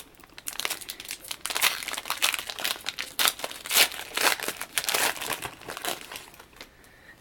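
Crinkling and rustling of a Yu-Gi-Oh booster pack and its cards being handled: a run of irregular crackles that dies away near the end.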